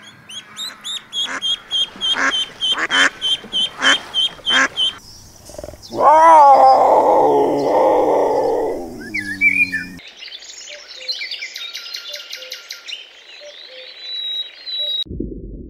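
Mallard ducklings peeping in quick repeated calls, with the hen quacking among them. Then a lioness gives a loud, drawn-out growl that falls in pitch, followed by quieter rapid high chirping.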